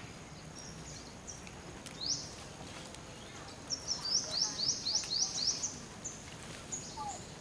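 A bird calling in a run of short, high chirps that each sweep upward, about four a second: one chirp about two seconds in, then a quick series of about eight around the middle, over a light outdoor background.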